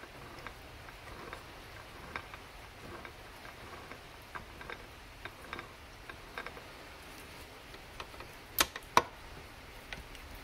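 Rebuilt Buick three-speed manual transmission worked by hand: light scattered metal clicks and ticks from the gears and shift mechanism, then two sharp metal clicks about half a second apart near the end as the shift fork and synchro sleeve are moved.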